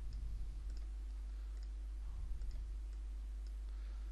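Computer mouse clicking now and then, several light, separate clicks over a steady low electrical hum.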